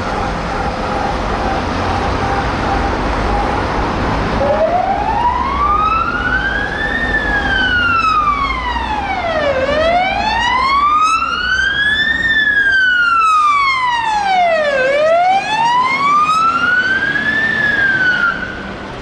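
A 2007 Scania P270 fire engine's siren in slow wail mode: about three long rises and falls, each about five seconds, starting about four seconds in and cutting off shortly before the end, over a low engine rumble.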